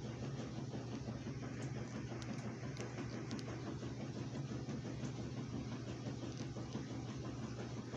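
A steady low motor hum, with a few faint ticks between about two and three and a half seconds in.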